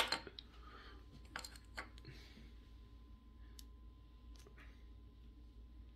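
Faint, scattered clicks of small plastic Lego pieces being handled and pressed together, a few at a time about a second and a half in and again around four and a half seconds in. A brief louder burst comes at the very start.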